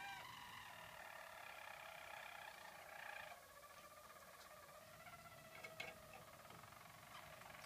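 Harzer roller canaries singing their soft, continuous rolling song, several held trilled notes at once, louder for the first three seconds and softer after. A single sharp click about six seconds in.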